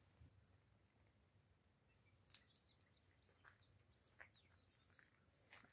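Near silence, with a few faint, brief bird chirps.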